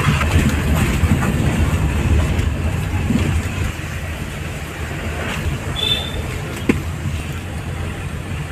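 Low, steady engine and road rumble heard inside the cabin of a Tata Indigo CR4 diesel car driving slowly over a rough street. A brief high tone sounds about six seconds in, with a sharp click soon after.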